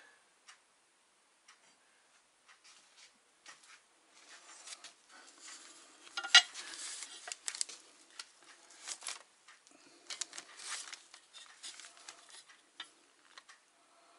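Metal parts of an electric motor and its mounting bracket being handled and fitted: irregular clinks, knocks and light scraping, sparse at first and busier from about four seconds in, with one sharp clank about six seconds in.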